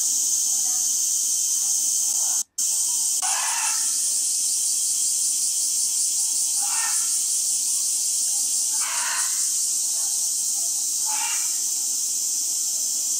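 Steady high-pitched hiss throughout, with a few faint short sounds every couple of seconds. The sound cuts out for an instant about two and a half seconds in.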